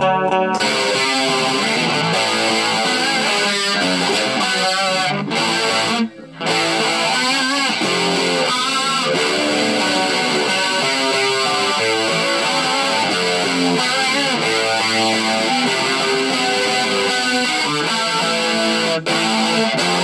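Electric guitar played continuously in a wrong tuning, with a brief stop about six seconds in and a short break near the end.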